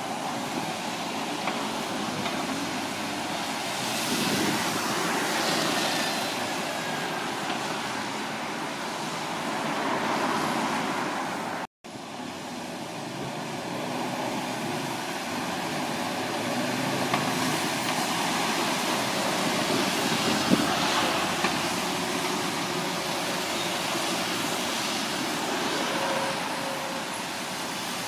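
Busy road traffic: cars, vans, a lorry and double-decker buses going past, the noise swelling and easing as each vehicle passes. About halfway through, the sound drops out for an instant at an edit cut.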